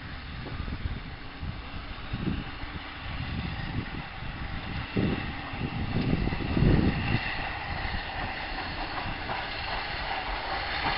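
Steam locomotive working hard as it pulls a goods train away from the station: heavy exhaust chuffs, with steam hiss and wagon rumble, getting louder as it approaches.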